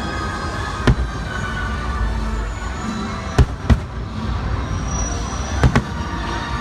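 Fireworks going off: five sharp bangs, one about a second in, a pair in the middle and another pair near the end. Steady show music plays under them.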